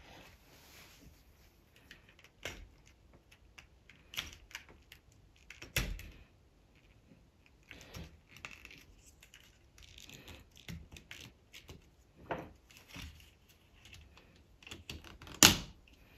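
Plastic Technic-style building-brick parts clicking and rattling as they are handled and pressed together, in scattered short clicks with one sharper snap near the end.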